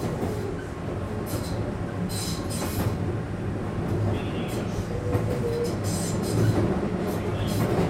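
Shizuoka Railway 1000 series electric train running, heard from inside the car: a steady low rumble of motors and wheels on the rails, with irregular short sharp clicks.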